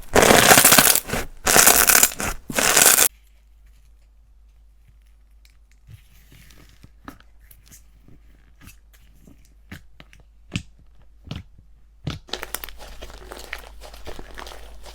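Slime being squeezed and pulled: three loud crackling, tearing bursts in the first three seconds, then quiet with scattered small pops and clicks, and soft crinkling crackle starting again about twelve seconds in.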